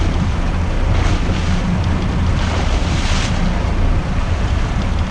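Wind buffeting the microphone over a boat engine's low rumble. A hooked blue marlin splashes alongside the hull, with louder splashes about a second in and again around three seconds.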